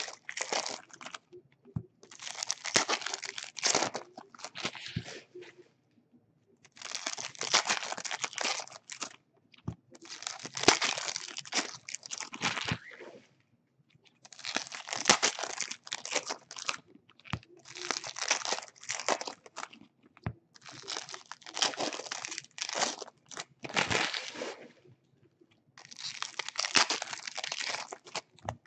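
Foil wrappers of baseball card packs crinkling and tearing as packs are opened, in about eight separate bursts of a second or more each with short pauses between.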